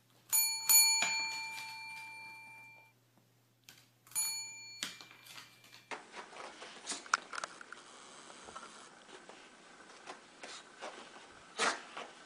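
A desk call bell rung by a dog: two quick dings about half a second in and another about four seconds in, each ringing on and fading, the last cut off short. From about six seconds in, faint soft pattering and rustling as a kitten scampers on carpet.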